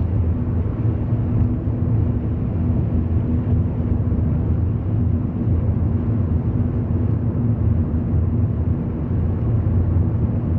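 Steady low rumble of engine and tyres heard inside the cabin of a 2010 Fiat Linea Dual Logic cruising on a wet highway.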